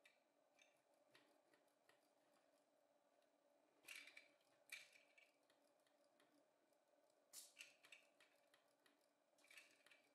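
Near silence with a few faint plastic clicks from LEGO Technic pneumatic switches being worked, two about four seconds in and two more a few seconds later.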